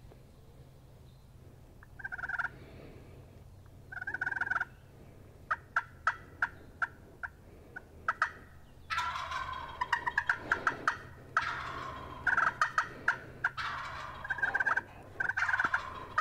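Wild turkey gobbling repeatedly, close by: two short calls in the first few seconds, a string of short sharp notes, then almost continuous loud gobbling through the second half.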